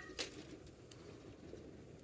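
Two light clicks of camp cookware being handled near the start, then a faint steady background hiss.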